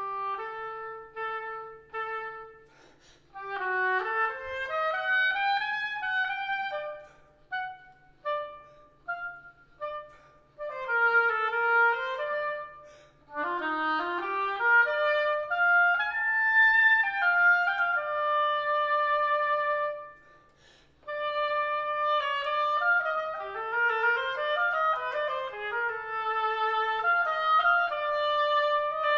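Solo oboe playing a melody: short detached notes, quick rising and falling runs, and some longer held notes, with a brief pause about twenty seconds in.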